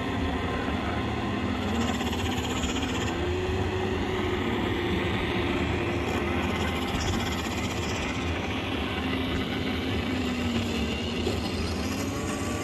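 Dense, steady electronic drone from a Ciat-Lonbarde Cocoquantus and a Korg Volca FM synthesizer: a rumbling, noisy wash with a low hum beneath and a few tones sliding slowly up and down.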